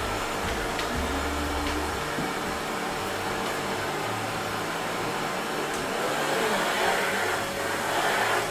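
Pet grooming vacuum running steadily: a continuous motor hiss with a thin whine that steps up slightly in pitch about six seconds in.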